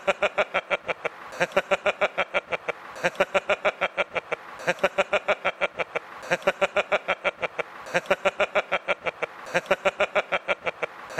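A man laughing heartily and without pause, in runs of quick 'ha-ha-ha' pulses, each run broken by a short catch of breath about every second and a half.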